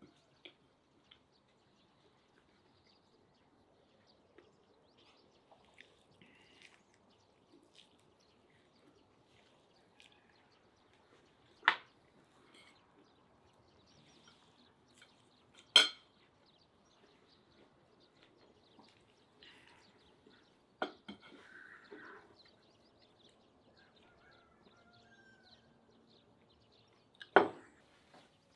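A fork clinking against a plate four times, each a sharp single clink, amid quiet eating sounds.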